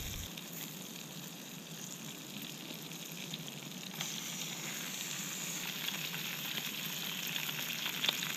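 Butter sizzling in a small camping frying pan, a steady fine hiss with faint crackles. About four seconds in, the sizzle gets louder as speckled trout fillets are laid in the hot butter.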